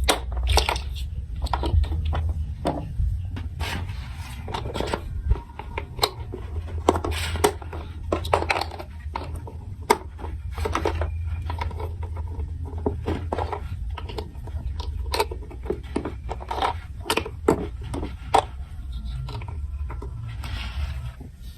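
Plastic marble-run building blocks clicking and clattering in an irregular run of sharp knocks, over a steady low hum.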